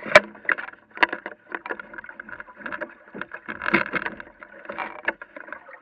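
Water lapping and splashing against the hull of a small sailing dinghy under way, with irregular knocks. The sharpest knock comes just after the start.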